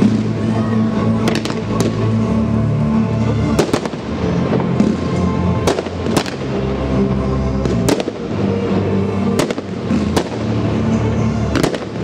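Fireworks going off: a run of sharp bangs a second or two apart, over steady music.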